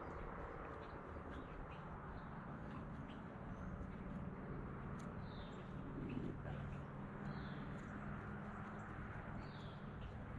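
Faint outdoor background with a few short bird chirps now and then over a low steady hum.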